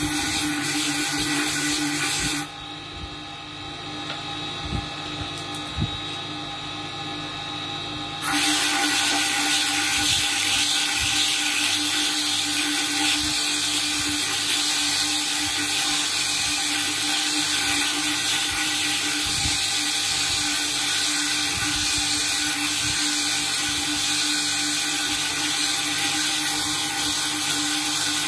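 Bead-making machine's spindle motor running steadily while a sapphire bead is ground against its spinning tool, giving a steady high grinding hiss over the motor's hum. About two seconds in the grinding hiss drops away for around six seconds, leaving a quieter hum with a few light ticks, then returns at full level.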